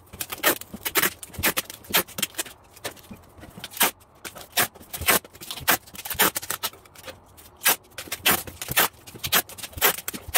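Clear packing tape being pulled off the roll and wrapped around a cardboard box: a run of short, sharp tearing screeches, irregular, roughly two a second.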